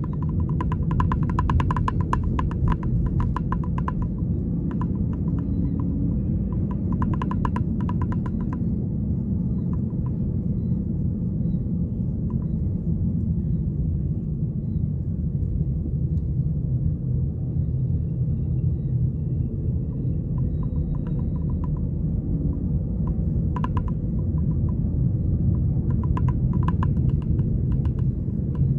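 Car cabin noise while driving: a steady low rumble of road and engine. Several short stretches of rapid ticking come and go over it.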